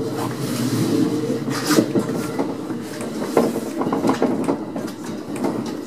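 Three-car electric multiple unit train running on snow-covered track, heard from on board: a steady hum from the running gear with irregular clicks and knocks from the wheels on the rails.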